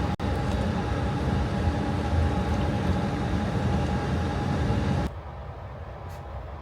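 Steady rumble of a moving Amtrak Pacific Surfliner passenger train heard from inside the car, with a faint steady hum. The level drops abruptly about five seconds in.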